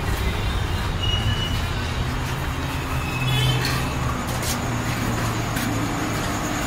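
Urban street ambience: a steady low rumble of distant traffic, with a few brief high chirps about a second in and again around three seconds in.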